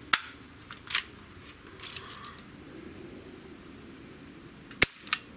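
Barra 1866 Junior single-pump BB air rifle being readied and fired: a sharp click of the action just after the start, a softer clack about a second in, then one short sharp shot near the end, followed by a faint tick.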